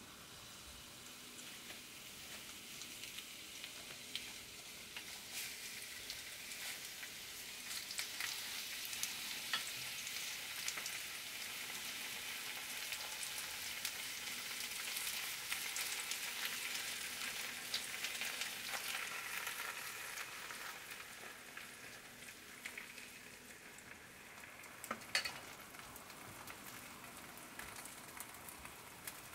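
Green onion stalks and pancake batter sizzling in hot oil in a frying pan, a steady crackling hiss that grows louder in the middle and eases toward the end. A single sharp tap about 25 seconds in.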